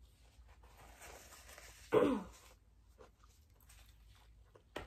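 A woman's long breathy sigh that ends, about two seconds in, in a short voiced groan falling in pitch, the sigh of someone tired enough to fall asleep. A short click near the end.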